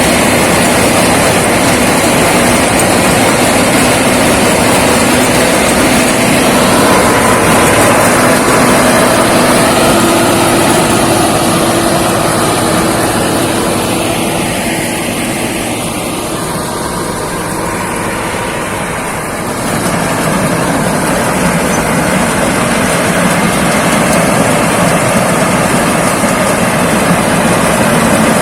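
Rice combine harvester running steadily while harvesting. It drops in level for a few seconds around the middle, then comes back up.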